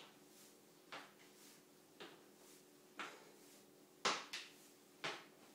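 Sneakered feet landing on a tile floor about once a second, with a quick double step about four seconds in, as a person steps sideways over a low hurdle bar. A faint steady hum sits underneath.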